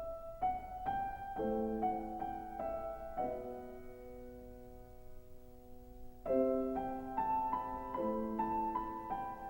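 Solo piano music: a slow melody of single notes over held, ringing chords, with a new phrase starting about six seconds in.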